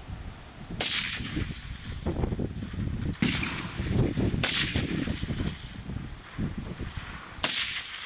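Four suppressed rifle shots, unevenly spaced: one about a second in, two close together around three and four and a half seconds, and one near the end. The rifle is a Larue OBR in 7.62 mm firing through a Surefire FA762SS suppressor. Wind rumbles on the microphone throughout.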